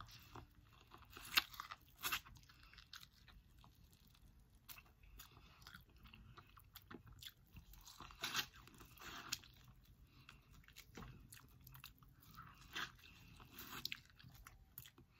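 Close-up biting and chewing of kernels off a corn cob, in irregular crunching bites, a few of them louder. The corn is tough to bite.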